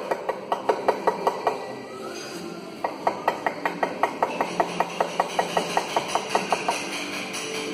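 Mallet tapping a steel chisel into Portland limestone in quick, even light strikes, about five a second. There is a pause of just over a second about a second and a half in, then the tapping resumes.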